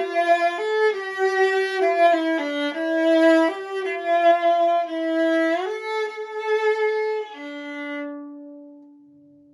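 Antique German Mittenwald viola, c.1890, 15.5-inch body, bowed in a melodic phrase of sustained notes. About seven seconds in it settles on a long held low note that fades away.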